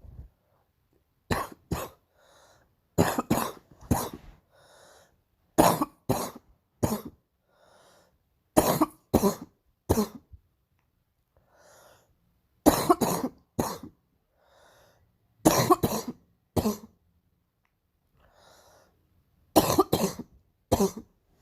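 A girl's harsh, barking cough in repeated bouts of two to four sharp coughs about every three seconds, with faint in-breaths between the bouts.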